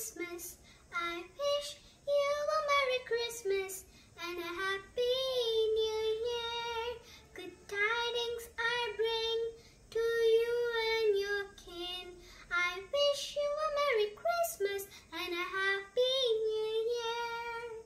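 A young girl singing a song solo, without accompaniment, in a series of held, sustained notes broken by short pauses for breath.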